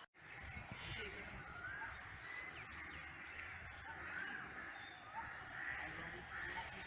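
Birds calling: scattered short calls over steady outdoor background noise with a low rumble.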